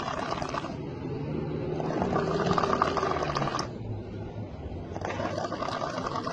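A person snoring, each breath a fluttering rasp with a low buzz between, repeating about every three seconds.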